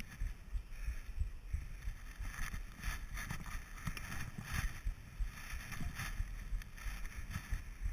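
Skis hissing and scraping over packed snow during a downhill run, swelling in a few surges as the skier turns, over a constant low buffeting rumble of wind and movement on a body-worn action camera's microphone.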